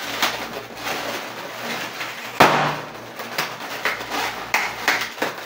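Latex twisting balloons (260s) being twisted and handled: a run of short rubbing and knocking sounds, with one louder knock about two and a half seconds in.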